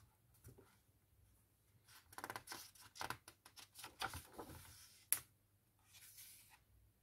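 Pages of a hardcover picture book being turned by hand: a run of paper rustling and crinkling, with one sharp snap about five seconds in as the page flips over, then a softer rustle.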